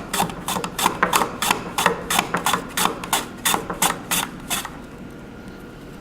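Radish being pushed back and forth across a handheld mandoline slicer's ceramic blade, a sharp slicing stroke about three times a second that stops near the end.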